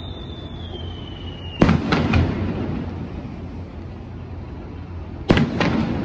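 Aerial fireworks shells bursting with two loud booms, about a second and a half and about five seconds in, each followed closely by a couple of fainter reports. Before the first boom, a whistle from a rising shell falls slowly in pitch and cuts off at the burst.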